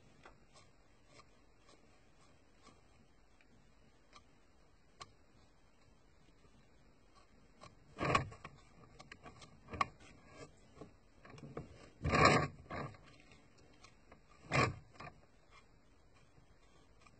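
Faint small ticks of handling at a desk, then three short rustles of a paper tissue being handled, the second the loudest.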